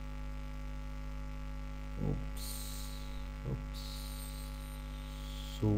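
Steady electrical mains hum on the recording. Two brief low murmurs come about two and three and a half seconds in, and a high hiss comes on in two stretches in the middle.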